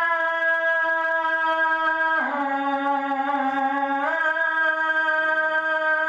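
A man's vocal imitation of a snake charmer's flute (pungi): a continuous held tune on long notes that steps down in pitch about two seconds in and back up about two seconds later.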